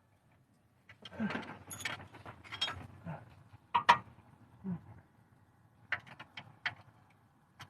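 Metal hand tools clattering and clinking in a toolbox as someone rummages for a 16 mm socket: a dense run of irregular clinks starting about a second in, then a few separate clinks near the end.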